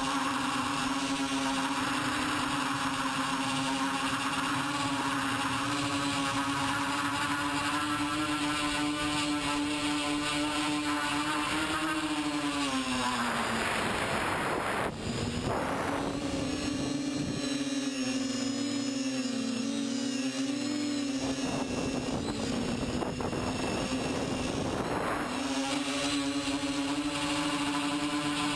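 TBS Discovery quadcopter's four electric motors and propellers whining steadily in flight, heard from the camera on its frame. The pitch sinks a little near the middle, wavers for a few seconds, then steadies again near the end.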